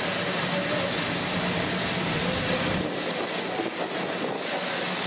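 C11 steam locomotive standing and venting steam: a loud, steady hiss that eases a little about three seconds in, over a low steady hum.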